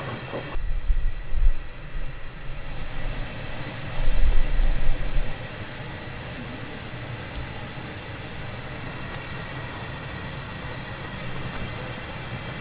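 Sugarcane juice at a rolling boil in a large open wok, a steady bubbling hiss. Two spells of low rumbling come in the first five seconds, then the boil goes on evenly.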